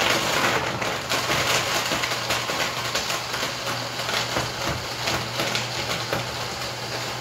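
Countertop blender running, its motor humming steadily under a loud grinding rattle with irregular knocks as it breaks up frozen fruit in milk. It is a little loud because the fruit went in straight from the freezer.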